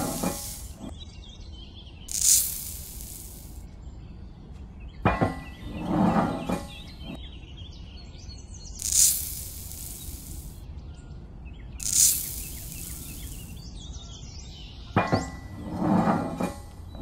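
Scoops of sand and cement mix tipped into a small plastic mixer drum. Each pour makes a brief rush of sliding grit, and the metal scoop clicks and scrapes against the plastic rim about five seconds in and again near the end.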